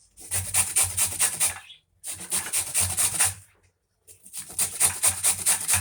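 A raw white turnip being grated by hand on a grater: three runs of quick rasping strokes, about five a second, with short pauses between them.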